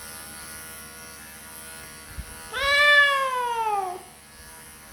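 Electric grooming clippers hum steadily. About halfway through, the cat gives one long, loud meow that falls in pitch.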